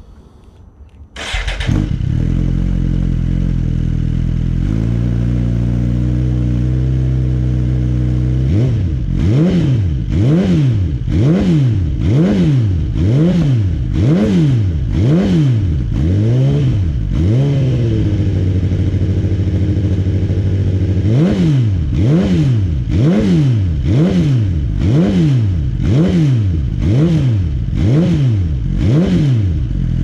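2019 Suzuki GSX-R1000R's inline-four engine through a Yoshimura Racing Titanium Cyclone exhaust with the short R-11sq silencer, starting up about a second in and idling. Past the middle it is blipped roughly once a second in two runs of quick revs with a short spell of idle between them.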